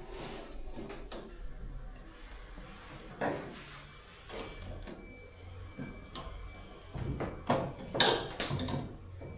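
Irregular knocks, clicks and scrapes of hand work on a boat hull under construction, with the loudest cluster about eight seconds in.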